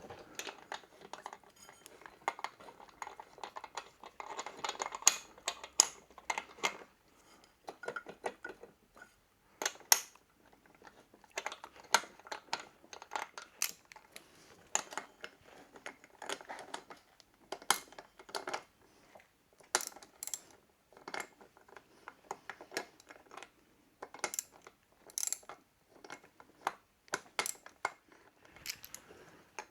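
Hand tools and small metal engine parts clinking and knocking in irregular sharp taps, more closely bunched in the first few seconds, as parts are handled and fitted during a motorcycle flywheel refit.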